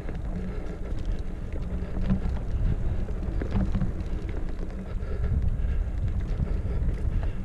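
Mountain bike ride on a dirt trail heard through an action camera's microphone: a steady low wind rumble on the microphone, with scattered clicks and rattles from the bike and tyres over the ground.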